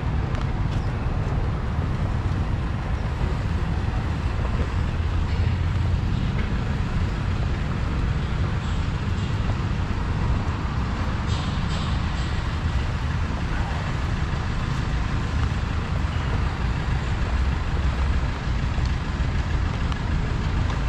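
Steady road traffic running past, heard as a continuous low rumble, with a few light clicks about halfway through.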